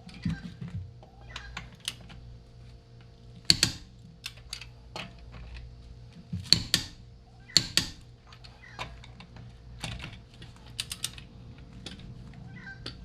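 Irregular sharp clicks and knocks of hand tools being handled during wheel work, some loud, at uneven spacing, over a steady low hum.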